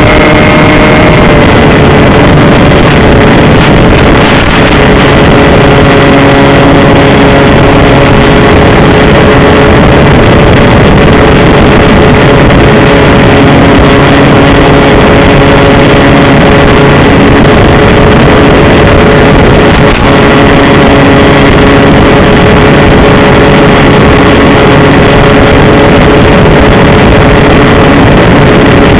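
Brushless electric motor and pusher propeller of a Bixler 2 model plane in flight, running loudly at steady throttle as a steady whine over a rushing noise. The pitch drops a little about a second in, as the throttle eases.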